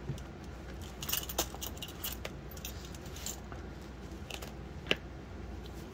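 Stationery handled on a wooden desk, a ring binder being moved and a pen held: scattered light clicks and clinks, with one sharper click near the end.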